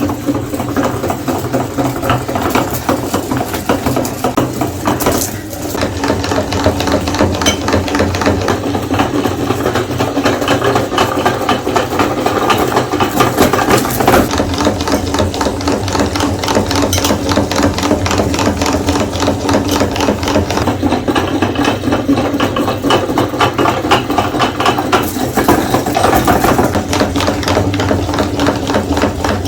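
Electric meat grinder running with a steady motor hum and dense crackling and rattling as it grinds Snickers bars, with a brief lull about five seconds in.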